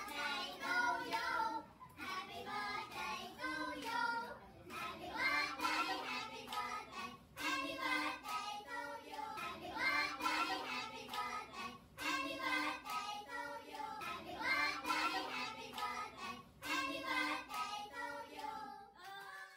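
A group of teenage students singing a song together, clapping their hands along as they sing.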